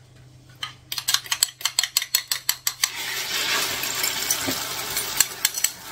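A fork beating eggs in a bowl, a quick run of clicks about six a second, lasting about two seconds. About three seconds in, the beaten egg goes into a hot oiled frying pan and sizzles steadily.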